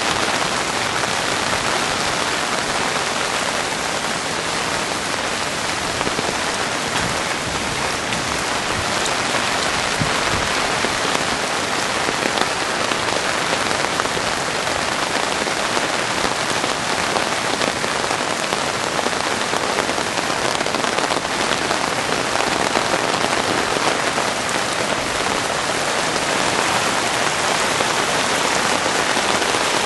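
Rain falling steadily, a dense even hiss that holds at one level throughout.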